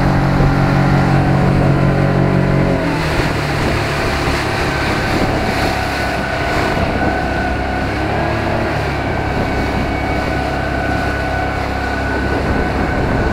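The outboard motor of a MacGregor 26-X running hard at planing speed, with the rush of water and spray from the hull's wake. About three seconds in, the strong low engine note changes and drops a little in level, then holds steady.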